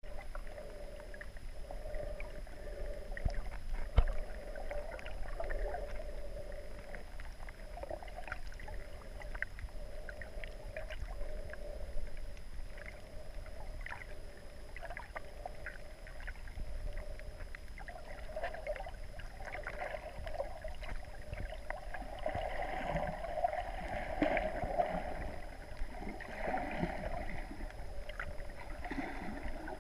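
Muffled underwater ambience heard through the water: a steady low rumble and hiss with scattered faint clicks and crackles, one sharper click about four seconds in, and a louder swell of water noise in the last third.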